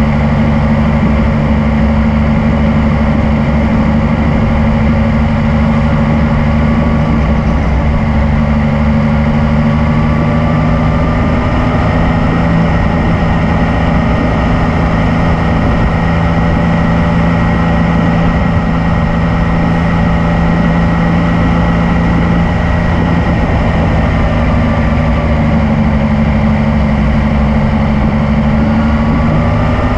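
2019 Yamaha MT-09's 847 cc inline-three engine running at a fairly steady speed while riding, with wind rush over it; the engine pitch sags a little midway and climbs again near the end.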